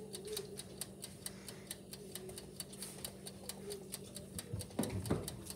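Steady rapid mechanical ticking, about four or five ticks a second, over a faint steady hum; near the end two short louder sounds break in.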